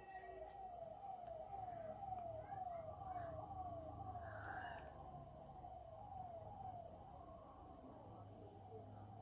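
Faint, steady high trill of a cricket chirping continuously. Underneath it, a falling squeak repeats a little over twice a second.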